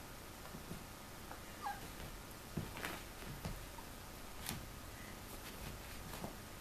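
Two small dogs playing, one a Russian Toy Terrier puppy: a couple of short high squeaks and soft thumps of paws on a rug.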